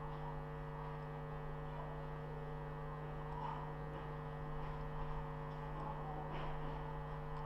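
Steady electrical hum with a few higher overtones, picked up by the recording microphone.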